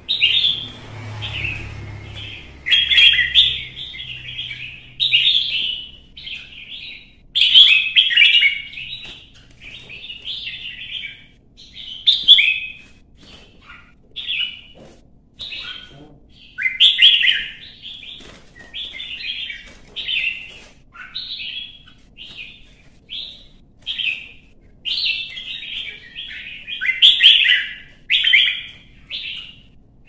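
Red-whiskered bulbul singing its fighting song: loud, short, clear chirping phrases repeated every second or two, the fired-up singing of a bird worked up for a song contest.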